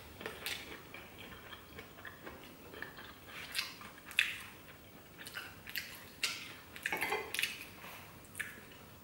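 A person chewing and smacking on glass noodles. Scattered soft clicks and taps come from chopsticks and a spoon on a plate.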